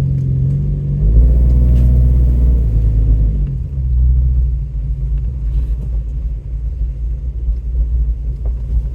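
Truck engine driving off-road: it revs up about a second in, eases back off after about three seconds, then runs steadily at low revs.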